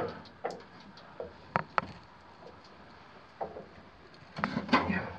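Scattered knocks and scrapes of someone climbing down a wooden ladder, with boots and gear bumping the rungs. A louder flurry of knocks and rustling comes about four and a half seconds in.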